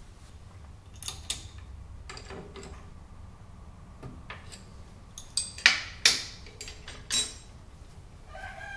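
Metal hand tool clicking and clinking against the fittings of a small milling machine: a scatter of sharp taps, with a quick cluster of louder clinks a little past the middle.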